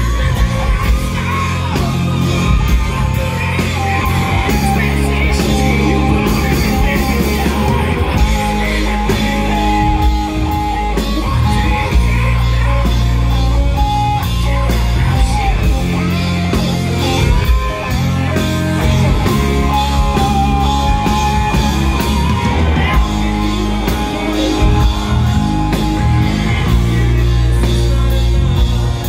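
Live rock band playing loud through an instrumental section: electric guitar leading over bass and drums.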